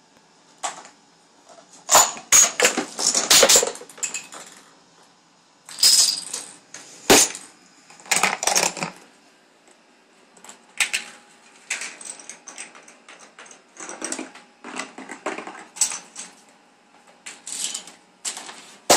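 Scattered knocks, taps and clatter of a homemade chain-reaction contraption running: a small ball dropping and rolling through cardboard ramps and tubes, and dominoes toppling one against the next, in irregular bursts of a few hits each.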